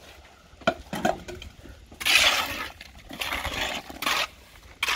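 Small trowel scraping through damp sand and stone dust in a galvanised steel dustbin, in short strokes with a couple of light clinks of metal on metal, as the mix is turned over freshly watered quicklime for hot-mixed lime mortar.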